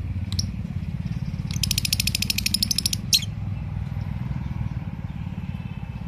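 Rose-ringed parakeet calling. It gives a short harsh squawk, then a rapid chattering run of sharp notes, about ten a second for about a second and a half, then another short loud squawk. A steady low rumble runs underneath.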